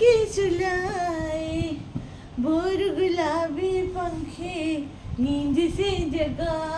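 A woman singing a slow tune unaccompanied, in long held notes that slide up and down between short pauses.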